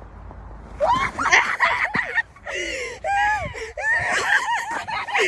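Teenage girls shrieking and laughing together, starting about a second in, with high squeals that rise and fall in quick overlapping bursts.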